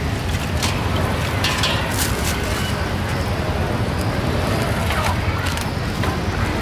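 Busy street-market ambience: a steady low rumble of motorbike engines and traffic with background voices, and a few short crackles as a plastic food bag is handled.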